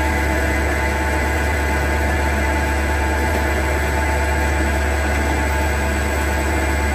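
CNC turning lathe running in its automatic cycle, its spindle turning an aluminium workpiece: a steady machine hum with a strong low drone and several constant tones above it.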